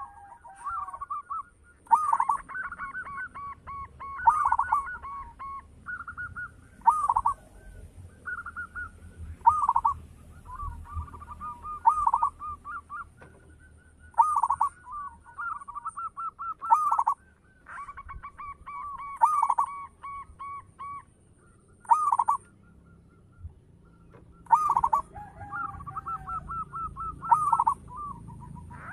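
Zebra dove (perkutut) singing its cooing song: a quick rolling run of notes ending in a stronger coo, repeated about every two and a half seconds.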